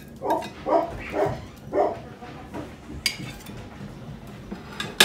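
A dog barking, four short barks in the first two seconds, then a sharp click near the end.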